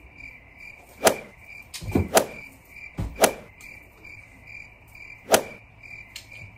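Crickets chirping in a steady high trill of evenly spaced pulses that cuts in and out abruptly. Several sharp knocks sound over it, louder than the chirping.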